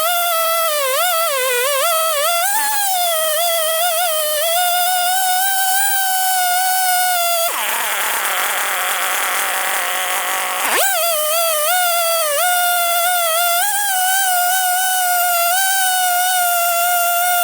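Husqvarna 562 XP two-stroke chainsaw with a ripping chain running at full throttle through a pine log on a chainsaw mill, its high steady whine wavering in pitch as the load changes. For a few seconds in the middle it turns rougher and noisier before settling back to the steady whine.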